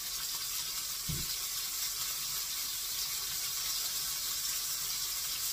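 Hamburger patties frying in a skillet, a steady high sizzle. One soft low thump comes about a second in, from the press-down vegetable chopper being pushed.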